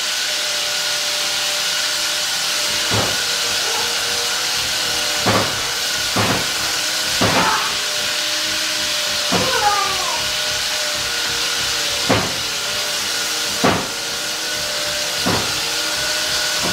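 Chicken pieces deep-frying in hot oil in a metal pot, a steady sizzle. Sharp clicks come about eight times as a metal fork knocks against the pot while turning the pieces.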